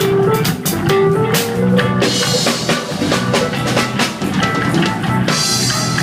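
Reggae dub band music: drum kit, bass and guitar, with a sliding melodic line early on and a bright high wash coming in about two seconds in and again near the end.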